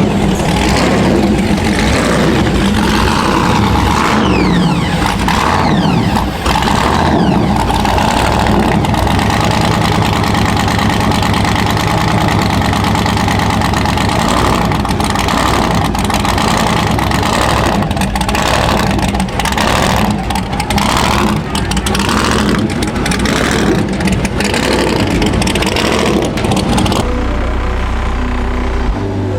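A custom truck's engine running loud and being revved, with people's voices over it.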